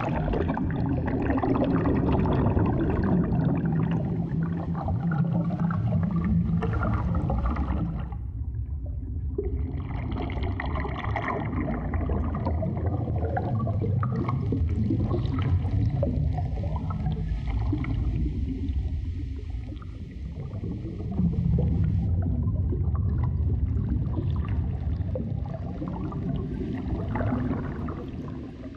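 Underwater ambience of gurgling, bubbling water over a low rumble. It thins out briefly about eight seconds in and swells again about two-thirds of the way through.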